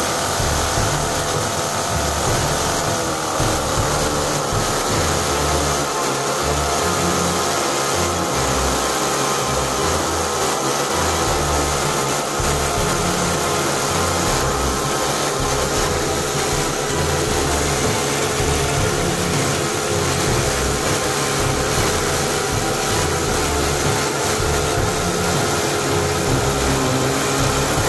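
Miniature supercharged V8 model engine in an RC boat running steadily.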